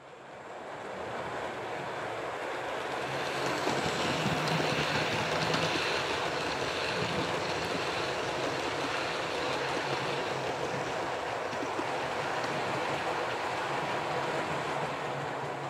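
Model passenger train running on the layout's track, a steady rumble of wheels on rails with a low hum. It fades in over the first couple of seconds and then holds steady.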